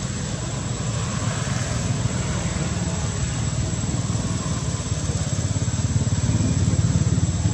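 A small engine running steadily off-screen, a low pulsing rumble like an idling motorbike, growing a little louder near the end, with a thin steady high tone above it.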